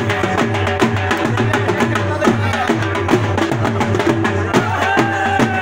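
Dhol drumming for a dhamal dance: a fast, steady, driving beat, with crowd voices over it.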